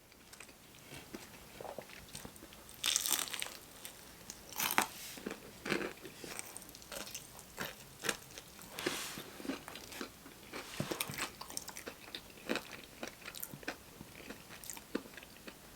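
Close-miked biting and chewing of crispy Popeyes fried chicken: irregular crunches and crackles of the breading, in clusters every second or two.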